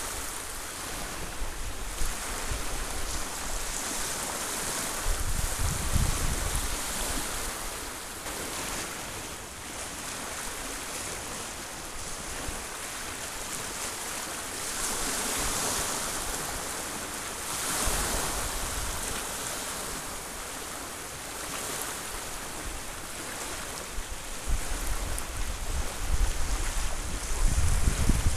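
Small bay waves lapping and washing onto the beach, the hiss of the wash swelling and fading every few seconds. Wind rumbles on the microphone in gusts, strongest near the end.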